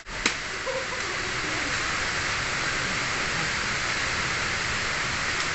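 Steady rush of running water at a pond's edge, with one faint click just after the start.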